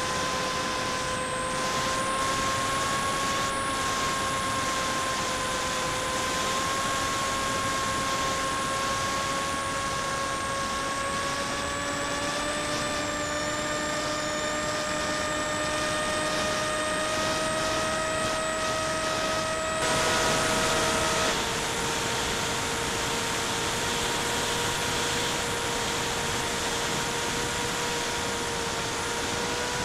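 FPV drone's electric motors and propellers heard from the onboard camera, a steady whine over rushing air noise. The whine climbs slowly in pitch for about twenty seconds, then drops suddenly to a lower pitch and holds there.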